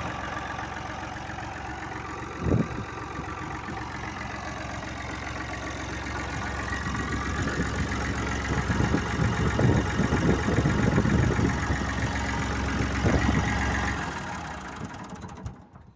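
Massey Ferguson 240's Perkins three-cylinder diesel engine running at idle, with a single sharp thump about two and a half seconds in. Near the end the engine is shut off at a lever by the injection pump and runs down to a stop.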